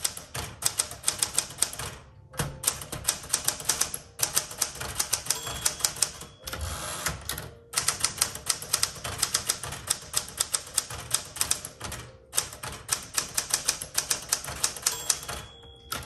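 A 1967 Smith Corona Super Sterling manual typewriter being typed on: quick runs of sharp key strikes, several a second, broken by a few brief pauses.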